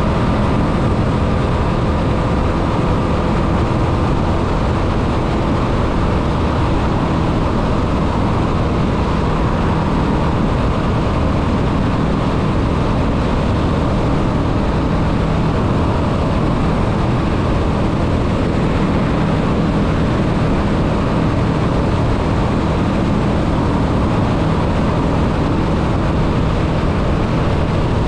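Honda Rebel 500's parallel-twin engine running at a steady highway cruise, under heavy wind rush over the microphone. The sound holds even, with no shifts or changes in throttle.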